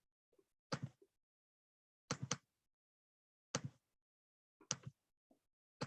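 Computer mouse clicks, mostly in quick double-click pairs, about one pair every second and a half.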